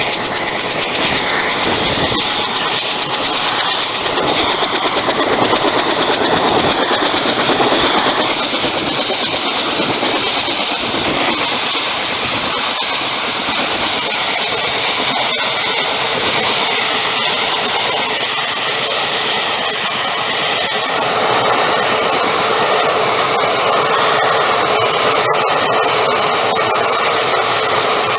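Helicopter engine and rotor noise heard from inside the cabin: a loud, steady whine and rush that holds unchanged throughout.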